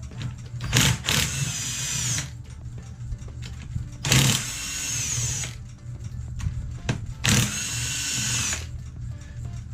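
Power tool spinning out the 17 mm bolts on the differential's bearing caps, in three runs of about a second and a half each, its motor pitch rising and falling.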